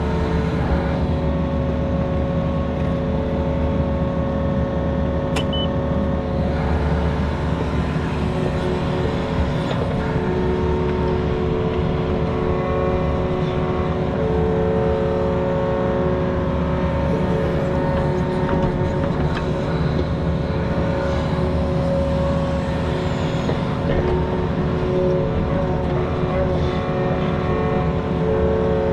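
Mini excavator's diesel engine running steadily under working load during digging, with a high tone in its sound swelling and fading as it works.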